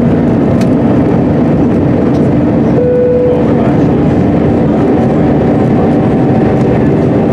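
Turbofan engines of an Airbus A320-family airliner at takeoff thrust, heard from inside the cabin: a loud, steady rush of noise over a steady drone, through liftoff and the first seconds of the climb. A brief higher tone sounds about three seconds in.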